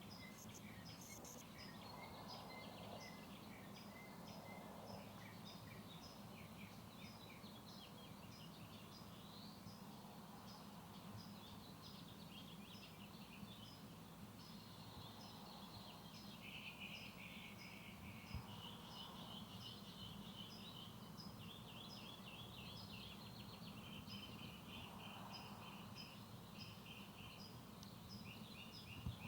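Faint outdoor ambience: high chirps repeating about twice a second, with stretches of buzzy trilling calls, over a steady low hum.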